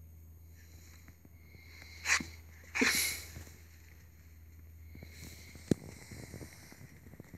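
Brussels Griffon puppy sniffing hard at a curtain: two sharp sniffs about two and three seconds in, the second a little longer. A single sharp click follows near the end.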